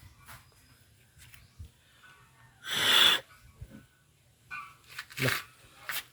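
Two short bursts of hissing noise: a loud half-second one about three seconds in and a shorter one a little after five seconds, with faint clicks between.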